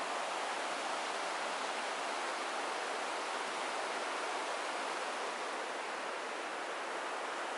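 Rushing river water: a fast, rain-swollen river pouring over rocks in white-water rapids, a steady, unbroken noise.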